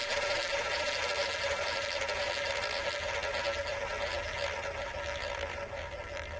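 Spinning roulette wheel sound effect from an online roulette game: the ball rolling around the rim as a steady whirring rattle with a faint hum, slowly getting quieter.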